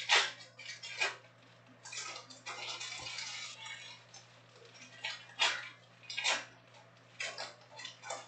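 Foil wrappers of trading-card packs crinkling as the packs are picked up and opened by hand: a series of short rustles, with a longer stretch of rustling about two to three and a half seconds in.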